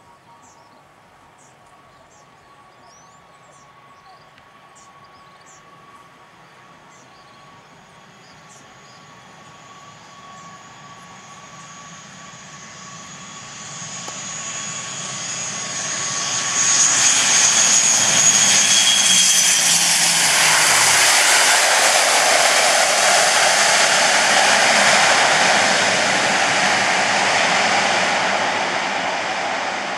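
ATR 72-600 twin-turboprop airliner approaching and landing, its two Pratt & Whitney PW127 turboprops and propellers growing steadily louder over the first half. It is loudest as it passes close on the runway, where a high engine whine drops in pitch as it goes by.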